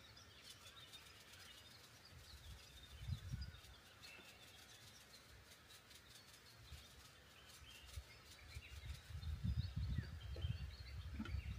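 Birds chirping faintly in the background, with a low rumbling noise about three seconds in and again, louder, from about nine seconds on.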